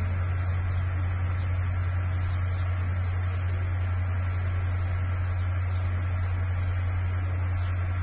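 A loud, unchanging low hum with a steady hiss over it and no separate sound events.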